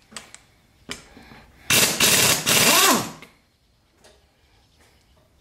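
A hand-held power tool runs in one loud burst of about a second and a half, starting about two seconds in. Its pitch rises and falls near the end. A couple of light clicks come before it.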